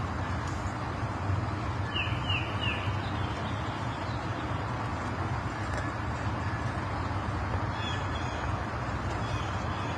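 Steady outdoor background rumble with a low hum, with three quick high falling chirps about two seconds in and a fainter chirp near eight seconds.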